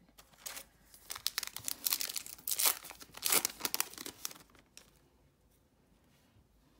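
Foil trading-card pack wrapper being torn open and crinkled by hand, a dense crackle lasting about four seconds, loudest in the middle.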